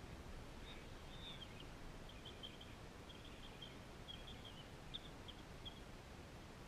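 Faint bird chirping: short, high chirps in quick little runs, repeated over several seconds above a low, steady outdoor background hum.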